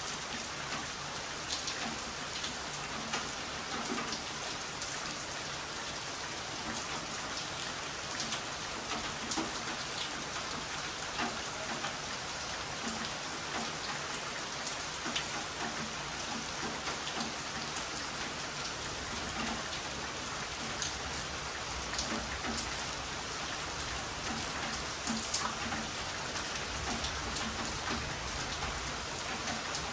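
Heavy rain falling steadily, with scattered louder drop hits and a low rumble that comes up in the second half.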